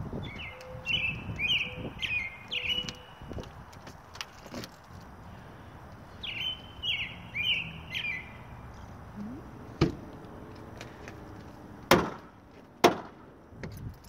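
A songbird perched on a wire singing two runs of short, clear notes, the second run coming about six seconds after the first. In the second half come three sharp knocks, the last two the loudest sounds.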